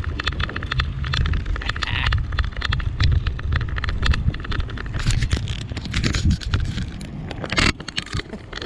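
Bicycle riding along a trail, with a steady wind rumble on the microphone and dense clicking and crackling from the ride. The sound drops off near the end.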